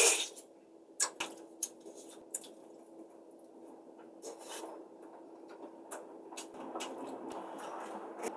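Close-up eating sounds of noodles and curry: a short loud slurp at the start, then a few light clicks of utensils against the bowl and soft wet chewing.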